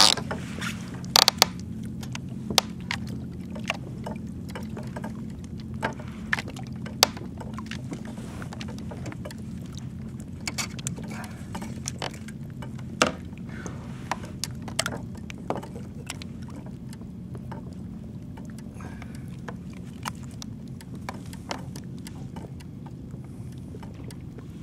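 Scattered splashes, clicks and knocks as a redfish is landed and handled aboard a plastic fishing kayak, most of them in the first half, over a steady low hum.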